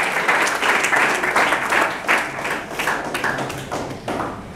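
A roomful of people applauding, many hands clapping at once, dying away near the end.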